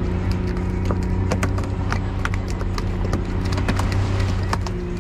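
A small fishing boat's motor running steadily, with irregular knocks and taps on top.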